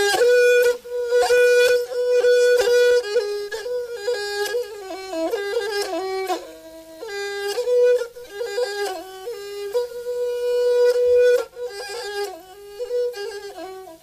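Instrumental music: a single melody line with many overtones, moving between long held notes and quicker stepwise runs.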